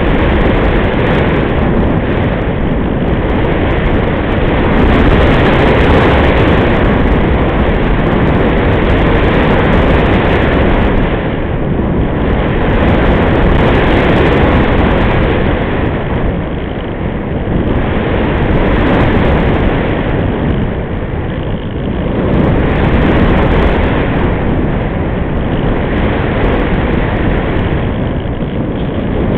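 Airflow rushing over the onboard camera's microphone on a Multiplex Easy Glider RC sailplane in flight, a loud rushing noise with no motor tone in it, swelling and easing every few seconds as the glider turns.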